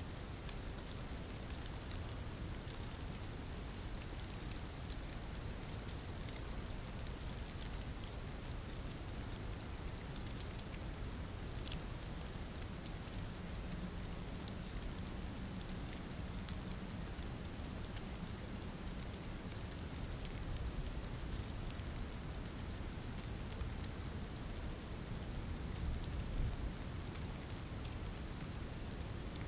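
Steady rain falling, a dense patter of drops over a low rumble.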